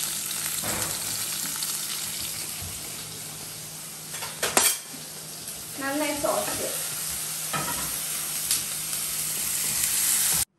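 Chopped onion and tomato sizzling as they fry in hot coconut oil in a non-stick pan while being stirred with a wooden spatula, with one sharp knock about halfway through. The sizzling cuts off abruptly just before the end.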